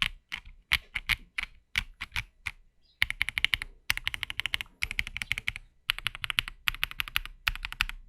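Typing on an Akko ACR Top 75 top-mount mechanical keyboard with Akko Crystal Wine Red linear switches and MDA Building Block keycaps, in its stock, fully dampened configuration. Separate keystrokes for about three seconds, then fast runs of typing broken by brief pauses.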